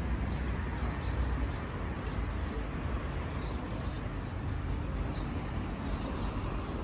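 Outdoor ambience: a steady low rumble with small birds chirping over it again and again.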